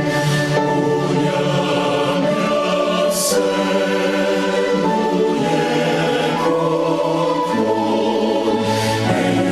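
A choir singing in harmony, holding notes, with a few sharp 's' sounds from the sung words.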